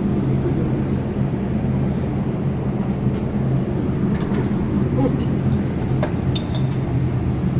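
A steady low machine hum, with a few light metallic clinks about halfway through.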